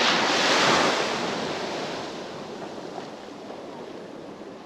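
Rushing wind and surf noise, loudest in the first second and then slowly fading.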